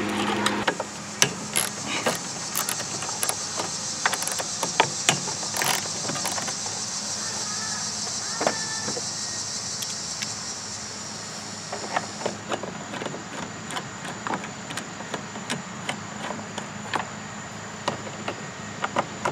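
Scattered sharp metallic clicks and taps of hand tools and a nut driver on a snowblower's bolts and brackets as they are unbolted. Under them runs a steady high hiss that stops about twelve seconds in.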